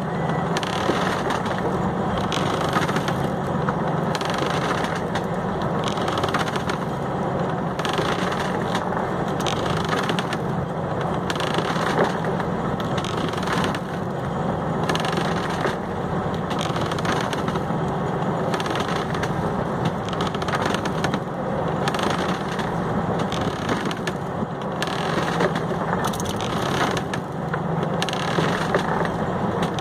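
A fishing boat's engine running steadily, with irregular knocks and clicks over a dense noise.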